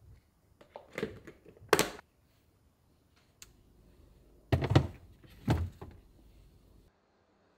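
A yogurt strainer being handled: its plastic lid knocks into place twice about a second in, then the clear bowl is set down on a refrigerator shelf with two louder clunks about a second apart.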